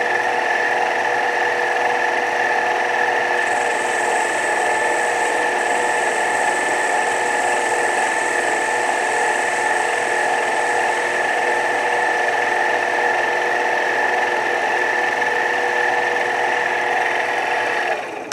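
Mini lathe running steadily with a constant whine from its motor and gears while cutting an aluminum part. It is switched off near the end and the sound drops away within a moment.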